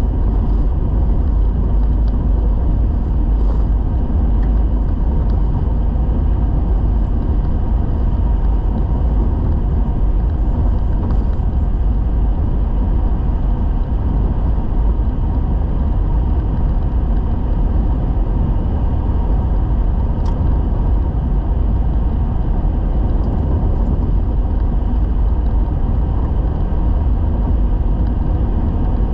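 Steady rumble of a vehicle driving along an unsealed gravel road: tyre and road noise, heaviest in the deep bass, holding an even level throughout.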